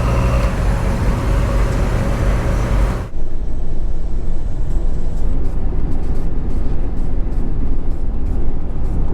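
Car driving on the road: steady engine and tyre rumble. About three seconds in it changes suddenly to a duller, lower rumble.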